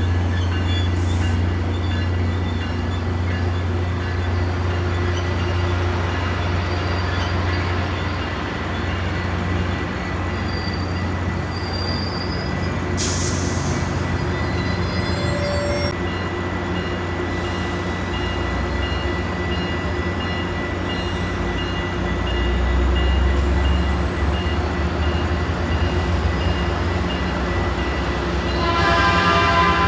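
A train running by with a steady low locomotive rumble and a thin high steady squeal from the wheels on the rail. A train horn starts sounding near the end.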